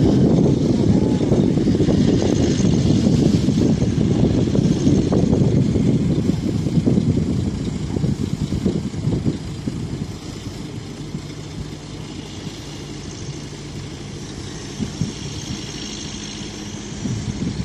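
Mobile crane's diesel engine running while it hoists an aluminium dome roof, with a loud, rough low rumble that eases off about halfway through, leaving a steady low hum.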